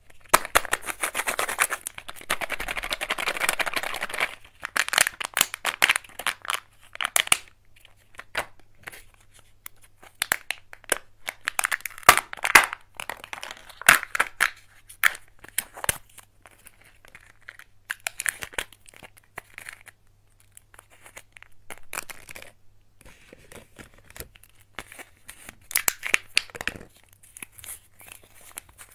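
Kinder Joy egg packaging being unwrapped by hand. A sealing film is peeled off with a dense crackle for about the first four seconds, then come scattered crinkles of wrapper and sharp clicks of plastic parts.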